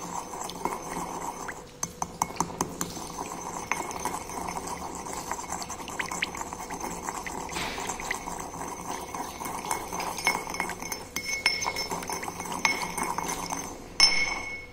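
Pestle grinding and stirring in a ceramic mortar holding a watery powder mixture: a steady scraping, studded with frequent clinks of pestle on mortar. There is a short break just before two seconds in, and a sharper knock near the end before the grinding stops.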